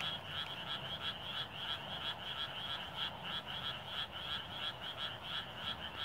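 A chorus of frogs calling, many croaks overlapping in a steady, rapid rhythm of several calls a second.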